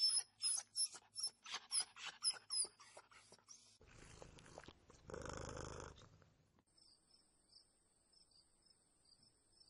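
Dog barking in quick succession, about ten short barks in three seconds, followed by a longer rough noisy burst. About seven seconds in, a cricket starts chirping with a steady high trill and pulsing chirps.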